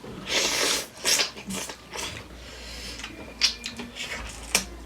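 Close-up eating sounds of spicy chicken feet: a loud breathy rush about half a second in, then scattered sharp clicks of biting and chewing.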